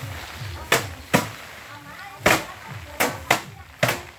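Bundles of harvested rice beaten by hand against a hard surface to thresh the grain loose, giving sharp thwacks at irregular intervals, about six in all, with two close together near the end.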